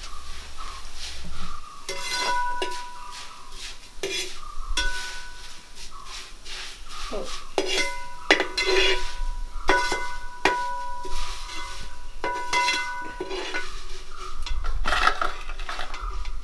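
A metal utensil clanking against a metal cooking vessel: irregular ringing clanks, each leaving a short metallic ring.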